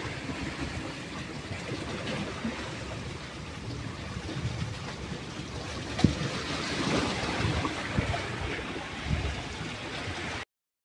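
Sea surf washing on a rocky shore with wind on the microphone: a steady rushing noise, with a sharp tap about six seconds in. It cuts off suddenly near the end.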